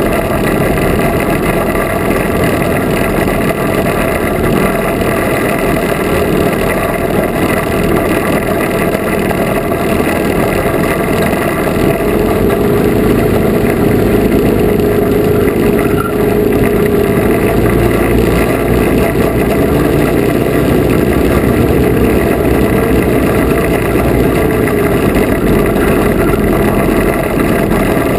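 Twin small engines of a Lazair III ultralight running steadily at low power while it taxis, heard close up on the airframe.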